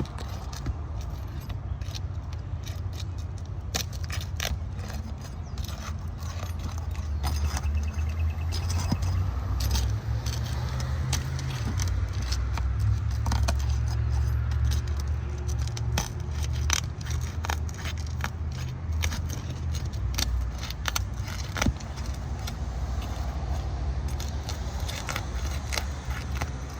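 Metal roof snake scraping and crackling as it is worked under asphalt three-tab shingles, breaking their sealant strips loose, with many sharp clicks and rattles. A low rumble runs underneath, strongest in the middle.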